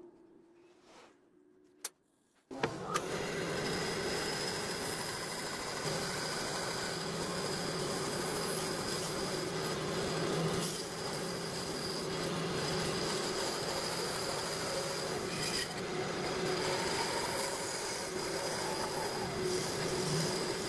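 A power tool starts about two and a half seconds in and runs steadily on wood, a continuous hiss with a faint constant hum.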